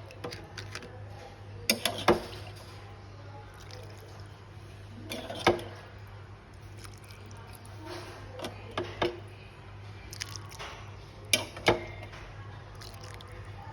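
Cooking sounds: scattered sharp knocks and clinks against kitchenware, the strongest in pairs near the start and near the end, with liquid sloshing and dripping between them, over a steady low hum.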